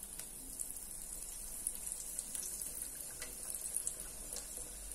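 Hot oil in an electric deep fryer bubbling and sizzling around cornflake-breaded rolls as they fry: a steady hiss with scattered small crackles.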